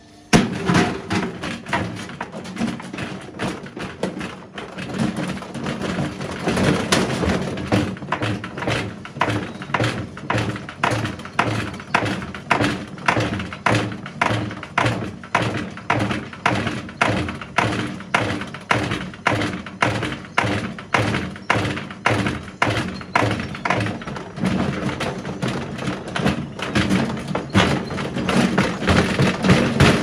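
Whirlpool front-loading washing machine running with a large stone in its drum: the stone bangs against the drum and the unbalanced machine shakes, giving a steady rhythm of heavy knocks, about two to three a second, over the low hum of the motor. It starts suddenly and gets louder near the end.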